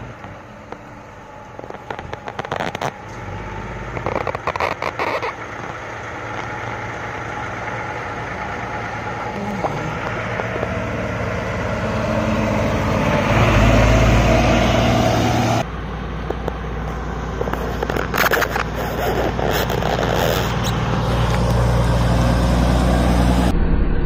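Heavy diesel dump truck engines running as a line of trucks approaches and one drives past, growing louder until about two-thirds of the way in. After that there is a close, steady diesel engine sound from a single truck.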